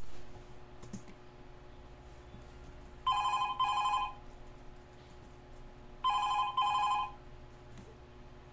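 Telephone ringing with a double ring: two short rings in quick succession, heard twice about three seconds apart.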